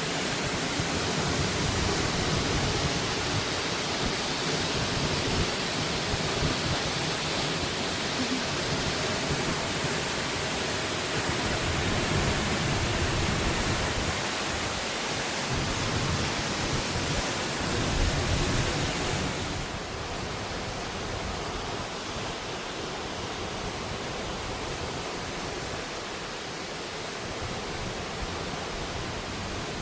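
Waterfall pouring, a steady rush of falling water; about 20 seconds in it becomes softer and duller.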